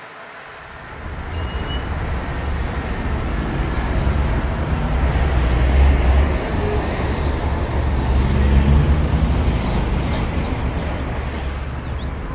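Steady low rumble of vehicle noise, starting about a second in, with a faint high squeal near the end.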